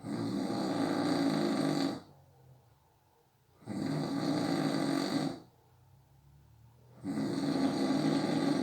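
A sleeping person snoring: three loud snores about three and a half seconds apart, each lasting under two seconds, with quiet breathing gaps between.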